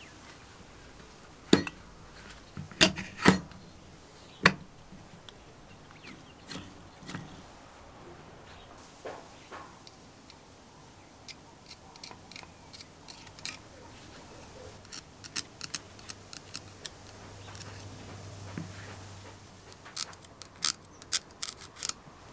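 Parts of a Wolf Sapphire electric drill being handled and fitted together, metal and hard plastic knocking and clicking. A few loud knocks come in the first few seconds, then scattered light clicks, with a quick run of clicks near the end.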